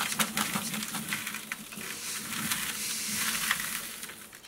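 Ground grain chick feed poured from a stainless steel bowl into a plastic bucket: a dense rattling hiss of grains landing, which thins to a trickle and fades out near the end.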